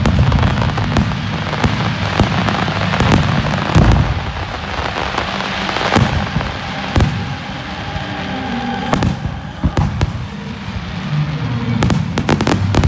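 Aerial fireworks display: shells bursting with sharp bangs over continuous crackling, with a rapid flurry of bangs near the end.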